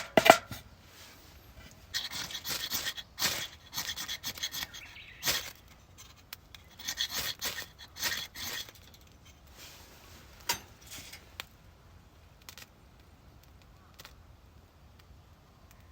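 Rough scraping and rubbing strokes in two spells of a few seconds each, with scattered clicks and knocks, then quieter handling near the end.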